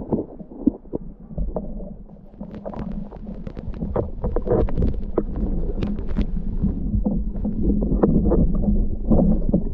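Muffled underwater sound picked up through a camera's waterproof housing: a low rumble with many short clicks and crackles, thickest in the middle.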